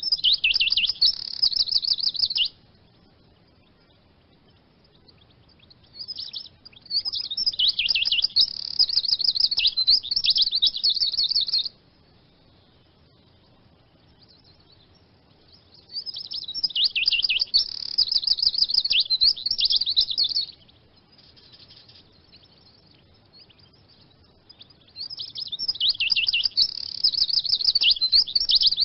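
Eurasian siskin singing: four bouts of fast, high twittering song, each a few seconds long, with short quiet pauses between them.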